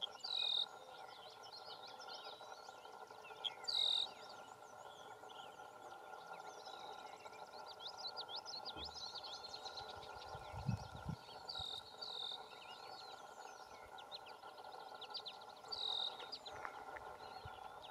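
Small songbirds singing: a busy mix of high chirps and trills, with one louder, clear call repeated four times a few seconds apart, over a steady low hum.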